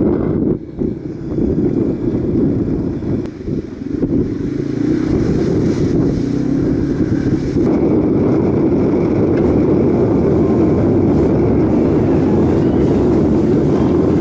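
Dual-sport motorcycle riding on a gravel track: the engine running under heavy wind buffeting on the camera microphone. The sound briefly drops twice in the first few seconds.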